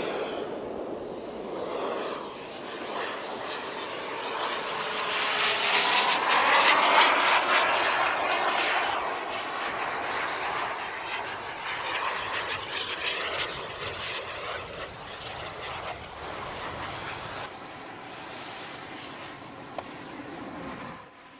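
Turbine engines of radio-controlled model jets flying past overhead: a continuous jet rush that swells to its loudest about six to seven seconds in, then slowly fades as they fly away.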